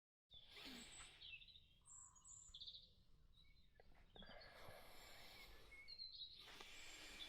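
Faint night-time outdoor ambience with scattered short, high chirps and calls from small animals, such as frogs, insects or birds.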